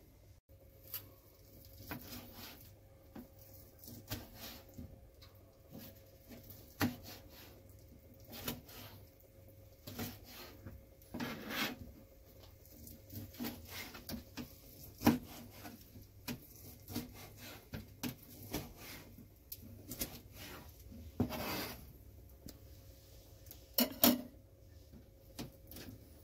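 Kitchen knife cutting lobster meat on a plastic cutting board: irregular taps and knocks of the blade on the board, with a couple of longer scraping sounds.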